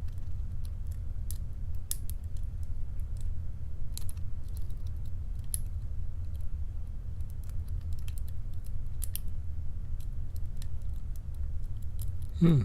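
Faint, scattered clicks of a lock pick and tension wrench working the pins inside a padlock during picking, over a steady low hum.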